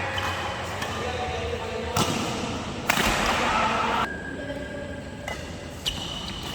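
Badminton racket strings hitting a shuttlecock: sharp hits about two seconds in, the loudest just before three seconds, and two more near the end.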